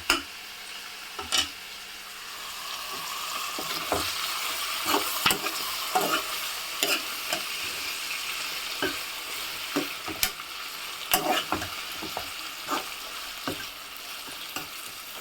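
Boiled tripe frying in hot oil in a pan: a steady sizzle that swells after a couple of seconds, with frequent sharp pops and clicks. The spattering comes from the water left in the boiled tripe meeting the oil.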